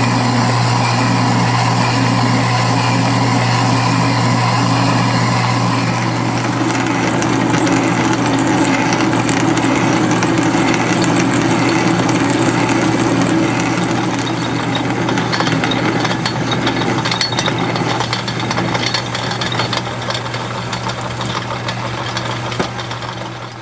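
Metal lathe running with a cutting tool in the spinning workpiece, first parting it off and later taking a facing cut, over a steady motor hum. The sound of the cut changes about six seconds in.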